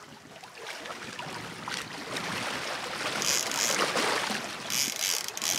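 Water rushing past a moving boat's hull. From about three seconds in, a fishing reel's clicker ratchets in short, regular bursts as the trolling line pays out, quickening near the end.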